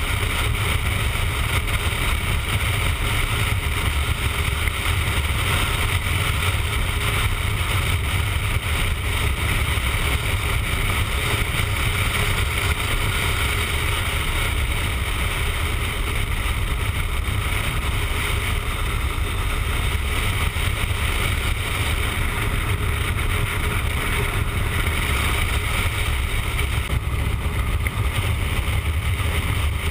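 Motorcycle cruising at road speed: a steady low engine drone under continuous wind rush buffeting the bike-mounted camera's microphone.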